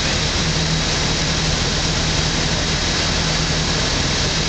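Steady rush of wind over an open-cockpit Thruster T600N microlight, with the engine running evenly beneath it on the final approach to land.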